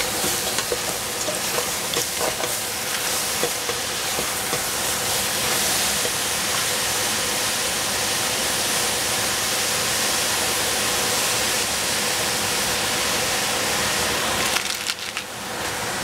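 Green cabbage and tofu sizzling as they fry in a hot pan, a steady hiss with a few light knocks in the first few seconds. The sizzle briefly quietens near the end.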